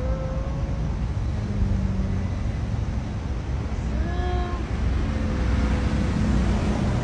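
Steady low rumble of street traffic, with a short pitched call near the start and a stronger rising-and-falling call about four seconds in.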